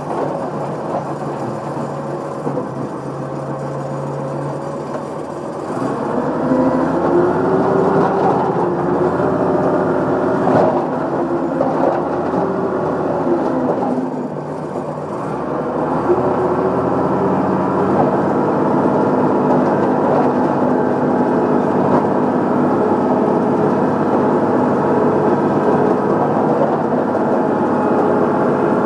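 Track loader's diesel engine running, heard from the operator's seat. It speeds up and grows louder about six seconds in, drops back briefly about fourteen seconds in, then picks up again and holds, its pitch wavering.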